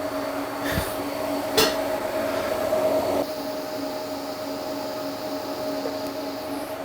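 TIG welder running during a fusion weld without filler rod: a steady hum with an even hiss, and a short click about a second and a half in.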